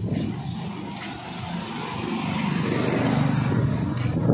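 An engine running steadily, growing gradually louder.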